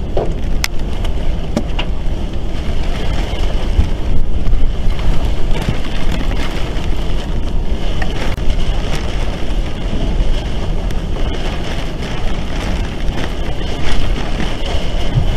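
Tornado winds blowing against a house, picked up by a home security camera's microphone: a loud, steady rumble with wind buffeting the microphone and a few scattered sharp clicks.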